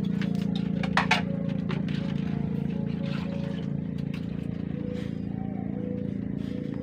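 An engine runs steadily at a constant pitch. Two sharp clinks come close together about a second in.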